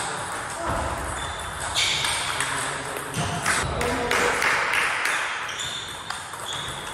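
Table tennis rally: the ball clicking sharply off rubber bats and the table top in quick irregular strokes, with further ball clicks from other tables in a sports hall.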